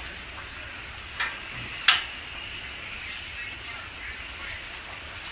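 Water sizzling and steaming on the hot steel surface of a Blackstone griddle as it is wiped down with a paper towel, a steady hiss. Two sharp clicks, about a second in and about two seconds in, the second the loudest.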